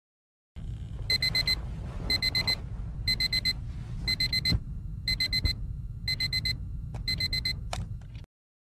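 Electronic alarm clock beeping in groups of four quick high beeps, about once a second, over a low steady room rumble; it cuts off suddenly near the end.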